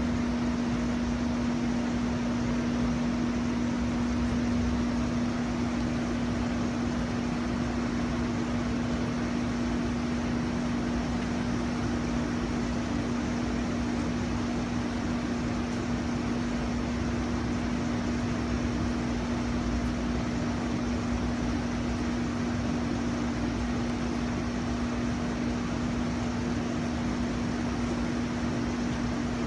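A steady drone holding one constant low pitch over an even hiss, unchanging throughout.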